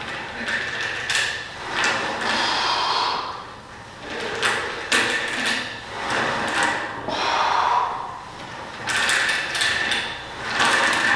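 Gym cable machine worked through repetitions: the cable sliding over its pulleys and the weight stack moving. Each pull swells and fades in a slow rhythm of about one every two to three seconds.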